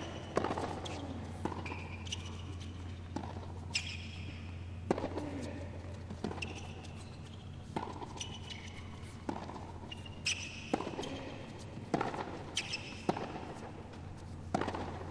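A tennis rally on a hard court: the racket hits the ball and the ball bounces in a regular back-and-forth, a sharp strike about every second or so, with short squeaks from shoes on the court in between.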